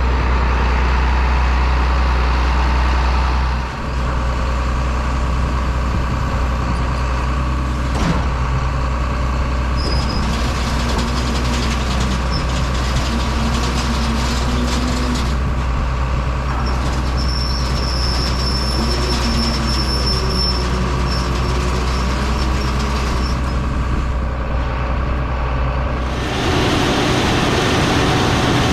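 Heavy diesel farm machinery running steadily, a continuous engine drone with a strong low hum; the sound changes abruptly near the end.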